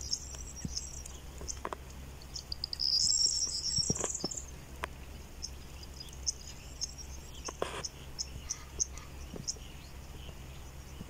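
Outdoor field ambience of high-pitched chirping from small birds and insects, with a louder trilling call about three seconds in, scattered light clicks and a steady low hum underneath.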